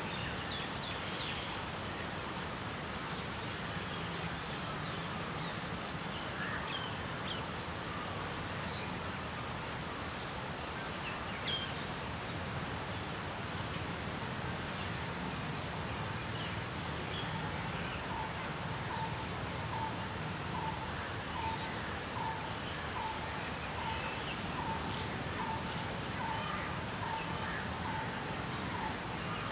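Outdoor ambience of bird chirps and quick high trills over a steady background hiss. In the second half one bird repeats a short single note about once a second. There is one sharp click a little before the middle.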